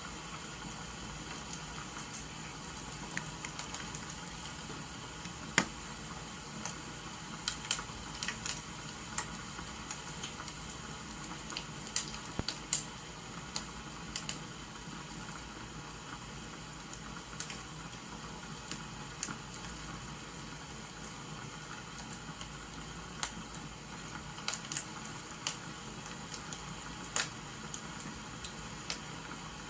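Steady hiss of rain with irregular pops and crackles of burning firewood.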